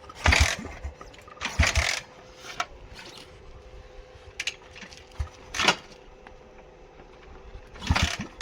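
Hero Splendor motorcycle's single-cylinder engine, fitted with an aftermarket double silencer, blipped through the exhaust in four short bursts over a steady idle.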